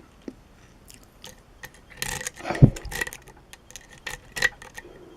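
Lock picks working inside a challenge lock held in a false set: scattered small metallic clicks and scrapes, thickest about two to three seconds in, with one louder knock among them.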